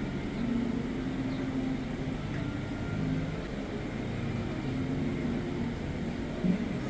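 Car driving at low speed: a steady low engine and road rumble with a faint drone.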